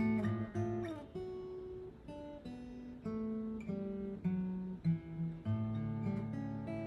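Acoustic guitar fitted with a new bone nut and saddle, played in a mix of picked single notes and strummed chords, with a new note or chord about every half second.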